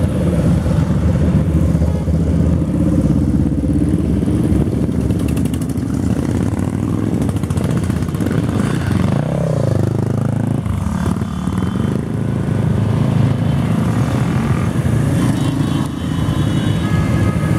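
A stream of motorcycles riding past at low speed, many engines running together in a steady, loud mix. About halfway through one bike's engine note rises and falls as it goes by, and a steady high tone joins near the end.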